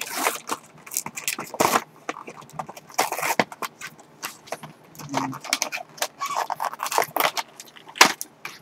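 Plastic blister packaging of a multi-pack of toy cars crackling and tearing as it is busted open by hand, a quick irregular run of crinkles, clicks and rustles with a sharp crack near the end.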